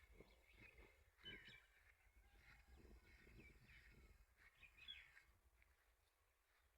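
Near silence with faint birds chirping: scattered short, gliding calls, a little louder about a second and a half in and again about five seconds in.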